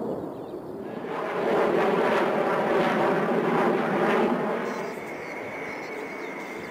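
Jet noise of Concorde's Olympus 593 turbojets as the airliner flies past low: a loud rushing sound with a crackling edge that swells about a second in and eases off after about four and a half seconds. A quieter rush with a steady high whine follows.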